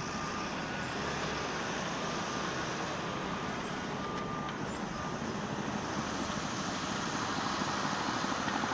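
Distant HMX-1 helicopter flying over: a steady rumble that grows slowly louder, with the beat of its rotor coming through near the end.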